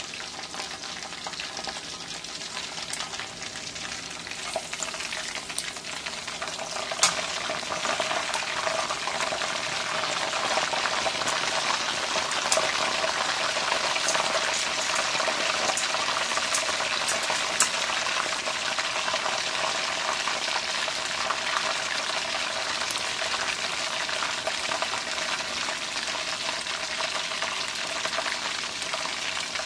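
Chicken deep-frying in hot oil in a wok: steady sizzling and bubbling with scattered pops. A sharp knock comes about seven seconds in, after which the sizzling grows louder.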